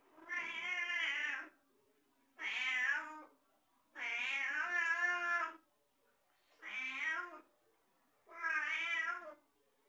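A domestic cat meowing five times. Each call is drawn out, rises and then falls in pitch, and lasts about a second, with short pauses between them.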